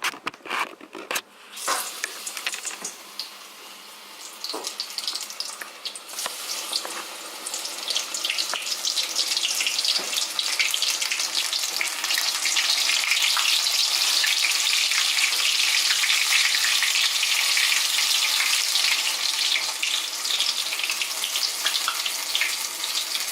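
Gram-flour battered vegetable pakoras frying in hot canola oil: a sizzle that starts a couple of seconds in and builds, loud and steady over the second half. A few light clicks and knocks in the first two seconds.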